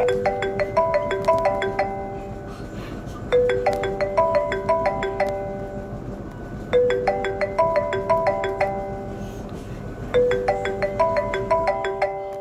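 Phone ringtone playing: a short melody of quick struck notes, repeated four times about every three and a half seconds.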